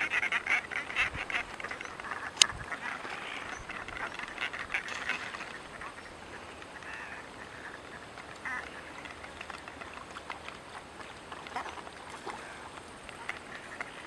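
Little Black Cormorants calling: a rapid run of short, harsh croaking calls, busiest in the first five seconds, then scattered calls to the end. A single sharp click stands out about two and a half seconds in.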